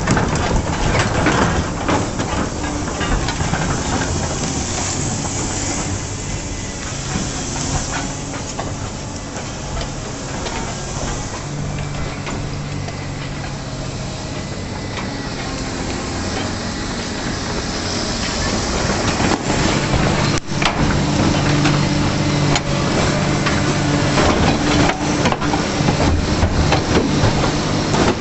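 Heavy-equipment diesel engine running and working under load, with a steady hiss over it. It grows louder about two-thirds of the way through, with scattered knocks and clanks.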